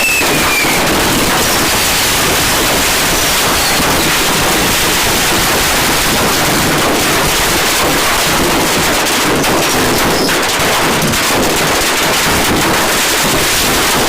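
Fireworks going off inside a room: a dense, loud, unbroken crackling and popping. Near the start a falling whistle fades out.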